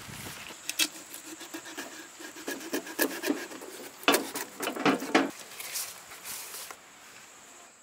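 A knife slitting and the hands working a whole raw goat carcass on a steel tray: scattered clicks, scrapes and rubbing, with sharper knocks about three, four and five seconds in.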